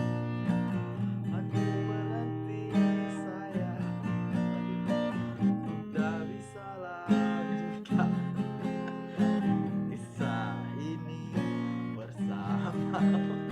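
Acoustic guitar strumming chords, a fresh strum every second or two.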